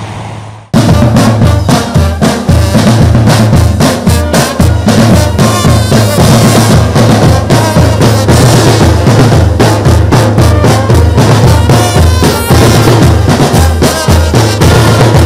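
Loud music with a heavy drum beat and deep bass, cutting in abruptly under a second in.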